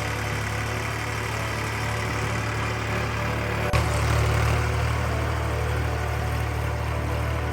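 Sonalika DI 745 III tractor's three-cylinder diesel engine running steadily. There is a sharp click about halfway through, after which the engine is slightly louder.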